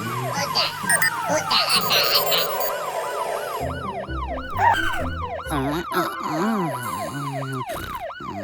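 Cartoon fire truck siren wailing in quick rising-and-falling sweeps, about two to three a second, with a short break near the middle.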